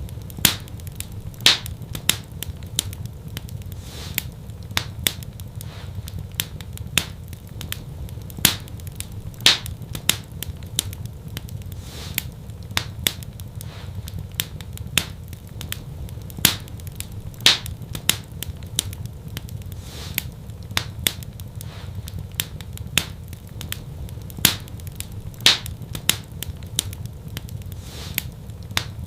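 Wood fire crackling in a fireplace: a steady low rumble with frequent sharp pops and snaps, a few of them much louder than the rest.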